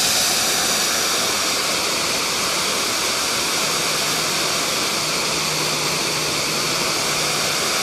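Small waterfall pouring into a pond: a steady, even rush of falling water.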